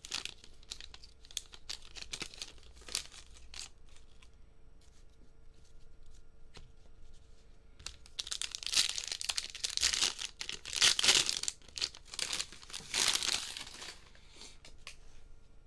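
Plastic wrappers of trading-card value packs being torn open and crinkled, with scattered small clicks in the first few seconds and the loudest tearing and crinkling coming in several bursts in the second half.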